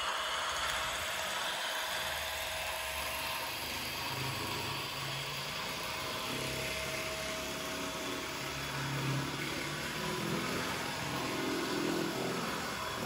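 An H0 Märklin Krokodil (Ce 6/8) model locomotive with a retrofitted ESU sound decoder running along the track. Its speaker plays a steady electric-locomotive running sound, mixed with the model's own motor and wheel noise, and low hums come and go from about four seconds in.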